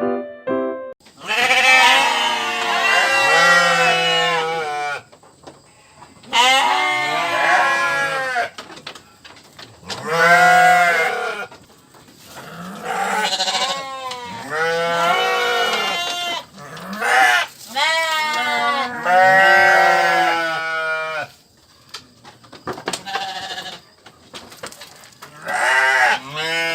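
Goats bleating over and over: long, quavering calls, each lasting one to three seconds, with short pauses between them.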